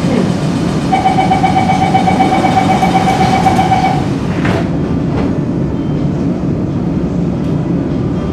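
Singapore MRT train doors closing: a held electronic warning tone sounds for about three seconds, then the doors shut with a sharp knock. The train's steady low hum runs underneath.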